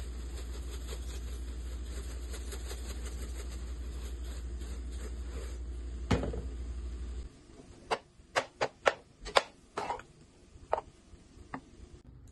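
A pepper mill grinding over the frying pan with fine quick clicks, over a steady low hum. About six seconds in there is a knock and the hum stops a moment later. Then comes a string of sharp clacks as a metal spatula knocks against the nonstick frying pan while stirring the fried rice.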